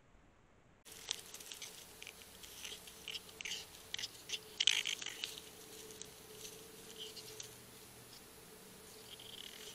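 Dry leaves and pine straw rustling and crunching in scattered crackly bursts as two young raccoons wrestle on the leaf litter, busiest near the middle and sparser toward the end, over a faint steady hum.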